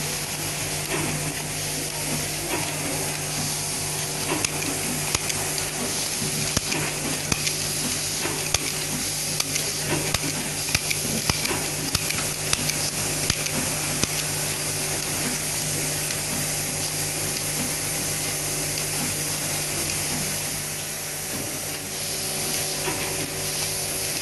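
Automatic cable tie gun at work on a wire harness: a run of sharp, irregular clicks as ties are fed, tensioned and cut off, over a steady hiss and hum. The clicks are thickest in the first half and thin out later.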